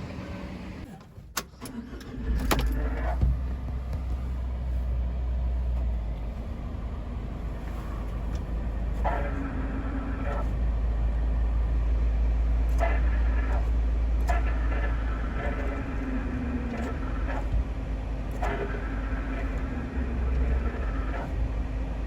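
Suzuki Every van's engine starts about two seconds in and runs with a steady low drone, while a harsh abnormal noise comes and goes in stretches of one to three seconds. This noise is put down to the clutch.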